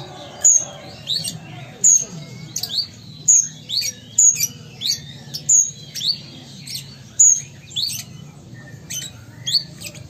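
Male Van Hasselt's sunbird (kolibri ninja) calling persistently in a cage: a steady run of short, sharp, high-pitched chirps, each a quick sweep in pitch, repeated about once or twice a second.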